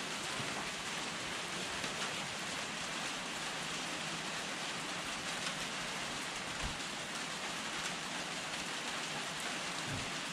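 A steady, even hiss like falling rain, with a couple of faint low thumps about seven and ten seconds in as the rusted carbine is shifted on a towel.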